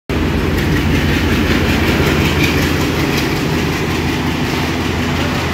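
Sri Lanka Railways class M8 diesel locomotive running light engine, its diesel engine working steadily under power as it moves off along the track, putting out black exhaust, with some clicking of wheels on the rails.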